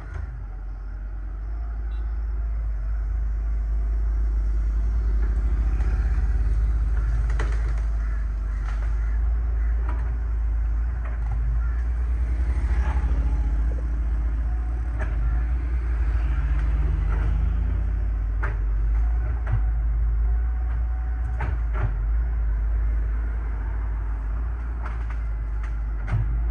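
Excavator diesel engine running under load with a steady low rumble; its pitch rises for a few seconds about halfway through as the hydraulics work, and scattered sharp knocks and clanks of the bucket against rock are heard.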